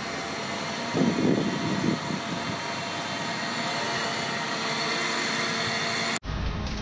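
Steady drone of a heavy machine's engine running, with a louder rumbling stretch about a second in. Near the end the sound cuts out for an instant and comes back with more low rumble.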